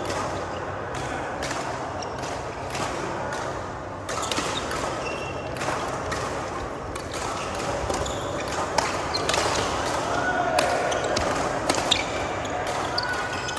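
Badminton rally: sharp racket hits on the shuttlecock and footfalls on the court, coming irregularly throughout.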